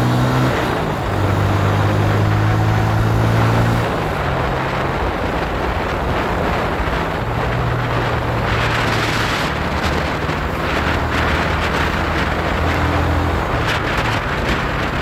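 Road vehicle's engine running under way, its note shifting in pitch a few times as it changes speed, with wind rushing over the microphone.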